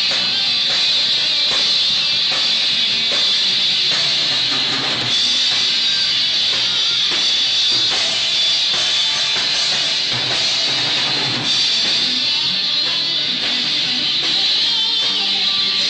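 A band playing live: strummed electric guitars over bass and a drum kit, loud and steady.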